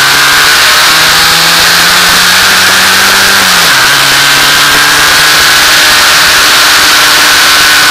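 F2000 formula car engine heard onboard under acceleration, rising slowly in pitch, then dropping sharply about three and a half seconds in at an upshift and pulling on steadily, over a loud steady hiss. The engine is held to about 5000 rpm by an electrical glitch, so it never reaches full revs.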